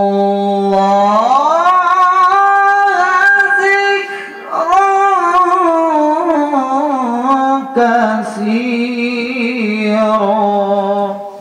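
A man reciting the Qur'an in melodic tilawah style into a microphone, holding long ornamented notes. The pitch climbs about an octave near the start, and the phrase breaks briefly twice, at about four and eight seconds in.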